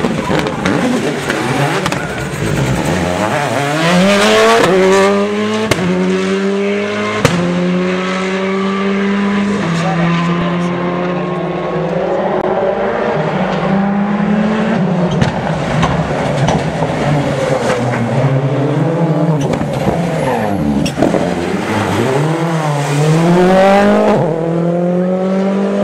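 Rally cars accelerating hard along a stage, the engine note climbing in pitch and dropping sharply at each gear change, several times over, with a few sharp cracks at some of the shifts.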